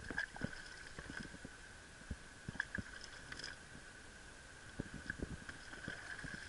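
Small waves lapping and knocking irregularly against a sit-on-top kayak's plastic hull, with a faint steady high tone underneath.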